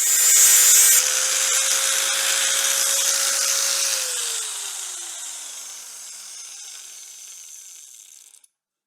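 Angle grinder cleaning old welds off cast iron, hardest in the first second, then running with a steady whine. About four seconds in it is switched off and spins down, its whine falling and the sound fading away.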